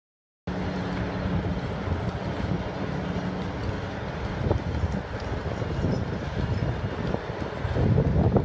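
Bucket-wheel excavator at work, its wheel digging into the soil: a steady heavy-machinery rumble with a low hum and clatter. It starts suddenly about half a second in and grows a little louder near the end.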